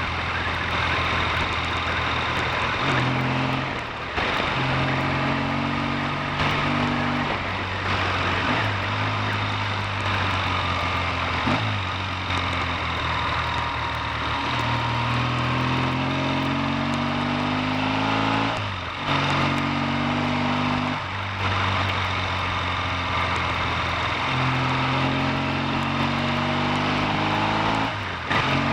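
Triumph T140V's 750 cc parallel-twin engine running on the road, its note climbing and then dropping back at each of about half a dozen gear changes, through its freshly repaired five-speed gearbox. A steady rushing noise lies under the engine throughout.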